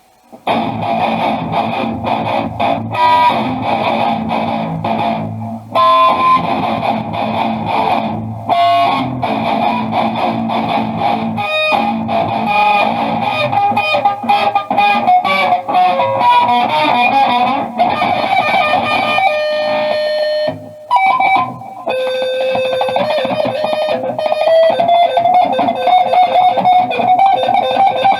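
Music led by electric guitar playing a melodic line over a band, with short breaks about six seconds in and again near twenty-one seconds.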